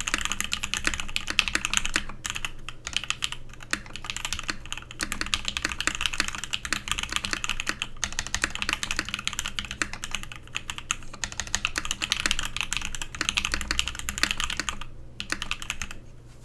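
Steady, fast typing on a Godspeed75 mechanical keyboard with lubed C³×TKC Tangerine linear switches (UHMWPE housings, POM stems, 62 g springs) and Krytox-lubed stabilizers: a dense run of keystroke clacks that thins out and stops near the end.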